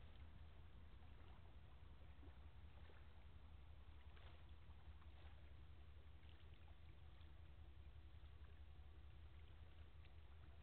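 Near silence: a faint steady low rumble from a distant tugboat's engine as it pushes a barge upriver.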